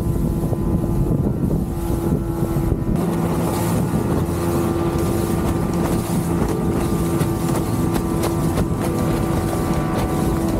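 A 1960s motorboat's engine running steadily under way, a constant droning hum, with wind buffeting the microphone.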